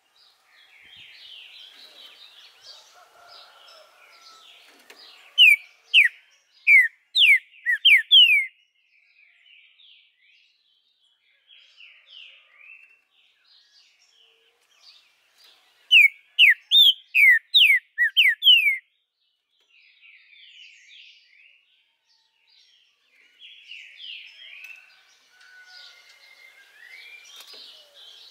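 Green-winged saltator (trinca-ferro) singing two loud phrases of about eight quick, sharp whistled notes each, some ten seconds apart. Between and under them, fainter chirping of other birds goes on.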